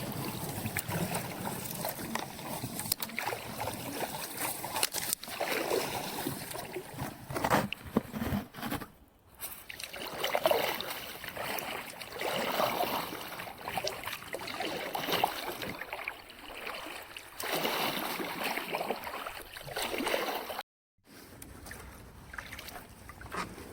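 Kayak paddle strokes in a shallow brook: water splashing, sloshing and dripping off the blades, swelling with each stroke about every two seconds. The sound cuts out briefly twice.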